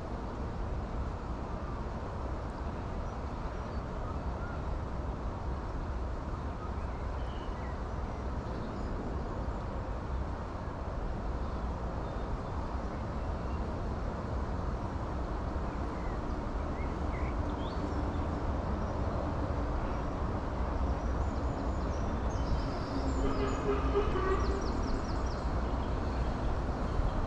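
Steady outdoor background noise with a low rumble, and a few faint chirps about 22 to 25 seconds in.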